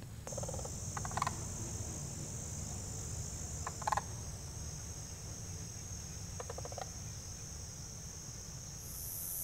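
Steady shrill chorus of evening insects, crickets, with three short rolling calls from cranes flying overhead, about a second in, at four seconds and near six and a half seconds. A second, higher insect buzz joins near the end.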